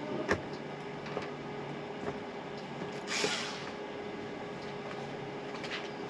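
A short hiss about three seconds in, from test smoke being let out for a smoke detector test, over a steady hum with a sharp click near the start and a few faint ticks.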